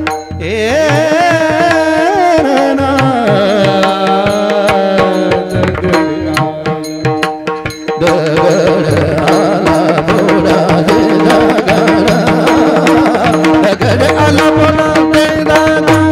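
Devotional bhajan music with tabla and a steady held drone. A singer draws out a long, wavering line for the first few seconds, and the drumming gets busier about eight seconds in.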